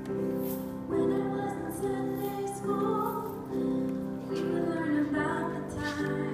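A woman singing with grand piano accompaniment.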